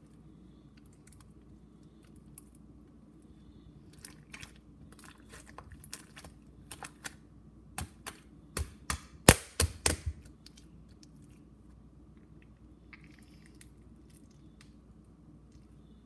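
White slime being pressed and squeezed by hand on a stone countertop: a string of wet clicks and pops from trapped air, building up to the loudest snaps a little past halfway through.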